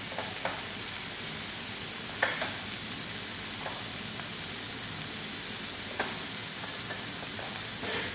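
Chicken hearts and onions sizzling steadily in oil in a frying pan, with a few short light clicks and knocks scattered through.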